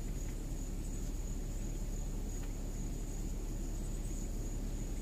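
Insects chirring in a steady high drone that pulses slightly, over a steady low rumble.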